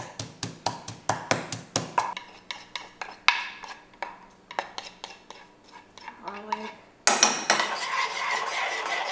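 Garlic pounded in a wooden mortar with a wooden pestle, quick regular knocks about four a second, then slower scattered knocks as a spoon scrapes the paste out of the mortar. About seven seconds in, a metal spoon starts stirring and scraping in a metal saucepan, the loudest part.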